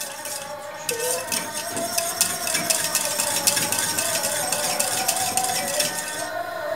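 Wire whisk stirring milk pudding in a stainless steel pot, its wires rapidly scraping and clicking against the pot, over a steady wavering tone.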